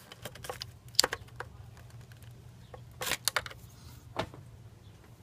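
Plastic wiring-harness connectors and clips on an engine being unclipped by hand: scattered sharp plastic clicks and knocks, a few at a time, over a low steady hum.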